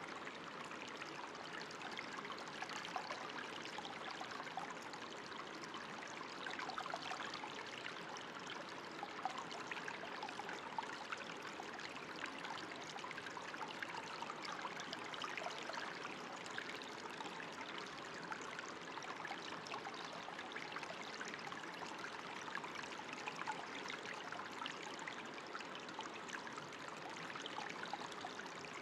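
Running water trickling steadily, with many small splashes.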